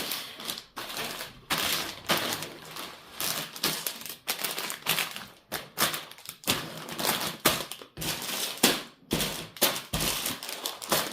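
Plastic bags of Lego pieces being handled, crinkling, with the small plastic parts inside clattering in quick, irregular bouts.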